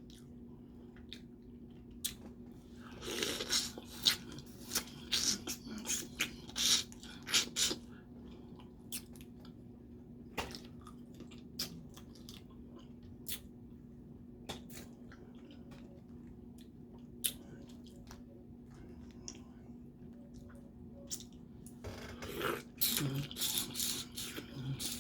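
Close-up eating of boiled crawfish: wet chewing, smacking and sharp clicks, busiest about three seconds in and again near the end, with scattered single clicks between. A steady low hum runs underneath.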